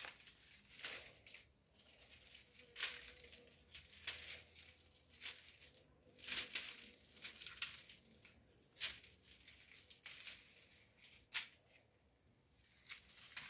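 Dry faveta bean stalks and pods crackling and rustling in the hands as the dried pods are picked off the plants. The crackles come in irregular bursts, with the sharpest ones about 3, 6 to 7, 9 and 11 seconds in.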